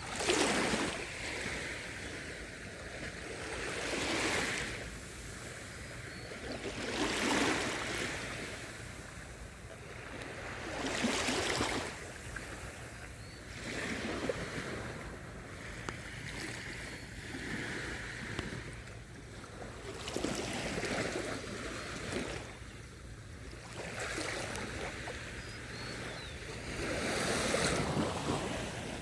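Small, calm sea waves breaking on a sandy beach, the surf swelling and washing back in a slow rhythm of roughly one wave every three to four seconds.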